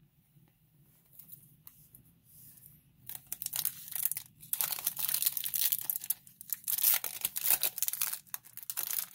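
Foil trading-card pack wrapper crinkling and tearing as it is ripped open by hand, in dense rapid crackles from about three seconds in, after a few faint clicks.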